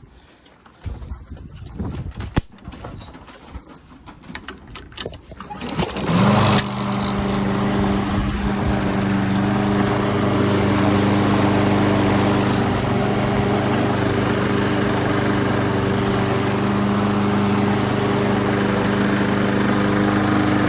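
Lawn Boy self-propelled lawn mower's engine being started: a few seconds of knocks and rattles, then it catches about six seconds in and runs steadily, a healthy start, until it shuts off near the end.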